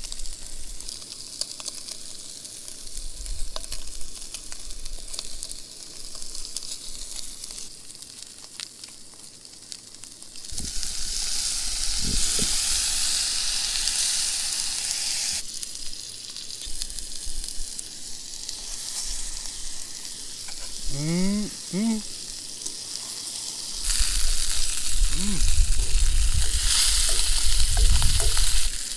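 Northern pike fillets sizzling steadily in a small camping frying pan over a camp stove. The sizzle grows louder about ten seconds in.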